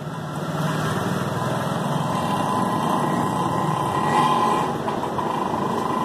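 A small engine or motor running steadily, with a faint steady whine over it.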